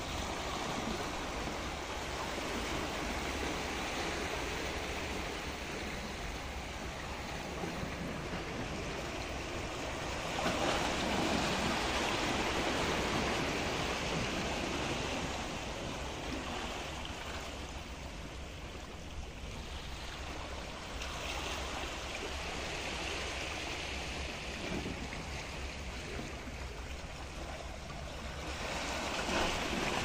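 Sea water washing and lapping against the rocks and concrete blocks of a breakwater, a steady rush that swells louder about ten seconds in and again near the end.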